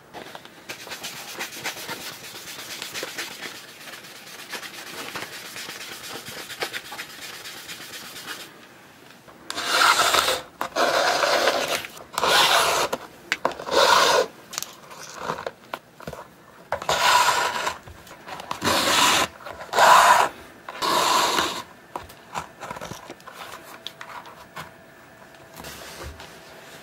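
Cordovan leather shoe being buffed with a nylon stocking, a steady rubbing for about eight seconds. Then a shoelace is drawn through the eyelets in about ten loud swishing pulls, less than a second each.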